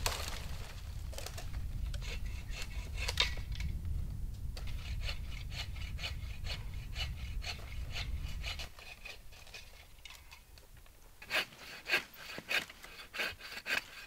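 Hand saw cutting through dead wood in repeated rasping strokes, a few a second, with short pauses. Near the end the strokes come louder and further apart.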